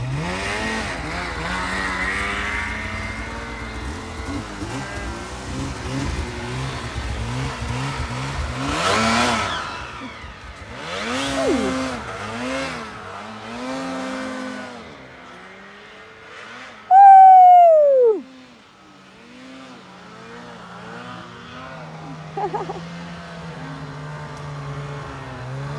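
Snowmobile engines revving up and down again and again as the sleds climb and ride in deep snow. About 17 seconds in, one sled's engine gives a loud, short whine that drops steeply in pitch.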